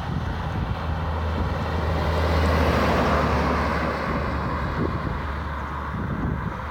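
A road vehicle passing close by, its tyre and engine noise swelling to a peak about three seconds in and then fading, over a steady low engine hum.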